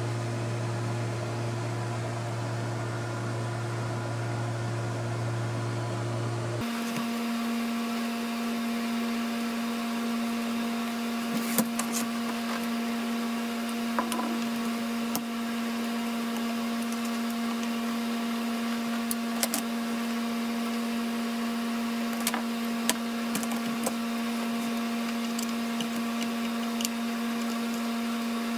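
Steady machine hum that changes abruptly to a different, higher-pitched drone about six seconds in. A few light clicks and taps sound over it.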